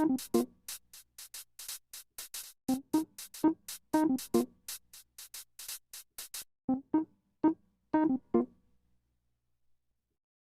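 Background electronic music: short keyboard notes over a fast ticking beat. The beat drops out about six seconds in, a few more keyboard notes follow, and the music stops near the end.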